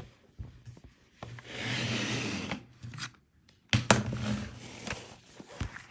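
Toys and objects being handled: a scraping, rubbing rustle for about a second and a half, then a couple of sharp clicks and more handling noise.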